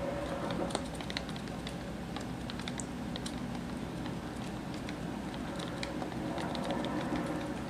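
Chipmunk's claws ticking lightly and irregularly on a hardwood floor as it scurries about, over a steady low hum.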